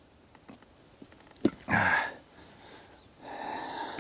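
A sharp click, then a man's strained breath and a long breathy exhale as he levers a motorcycle tire bead over the rim.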